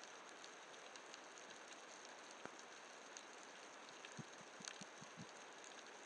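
Faint underwater ambience picked up through a camera's waterproof housing: a steady hiss scattered with small clicks and crackles, and a few soft low knocks in the second half.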